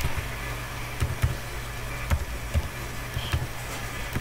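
Computer keyboard keys tapped one at a time, about seven separate keystrokes at an uneven pace, over a steady low hum.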